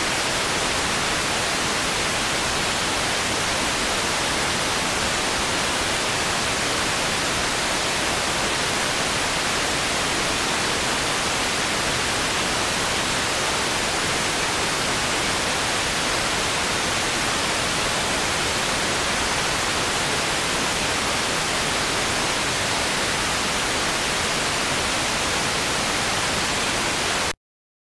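Steady, loud static hiss, even from low to high pitches and unchanging throughout, which cuts off abruptly to dead silence near the end.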